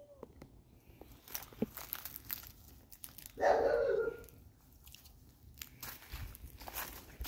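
Footsteps crunching through dry leaves and grass in short irregular crackles. About three and a half seconds in, an old orange cat gives one short meow that falls in pitch at its end, the loudest sound here.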